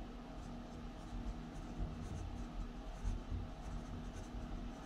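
Felt-tip marker writing words on paper in faint, short strokes.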